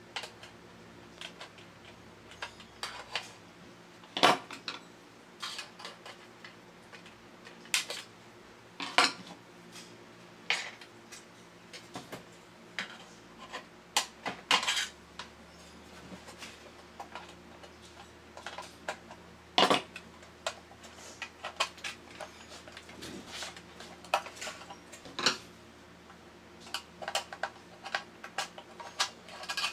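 Irregular metal clinks, taps and knocks from the tin-plate body and parts of a Chief Smoky reproduction toy robot being handled and worked on by hand, a handful of them much louder than the rest.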